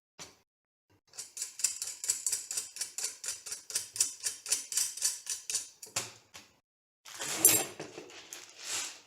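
Ratcheting hand tool clicking rapidly and evenly, several clicks a second, as a screw is driven into the 3D printer frame. A knock follows, then a scraping rustle of parts being handled near the end.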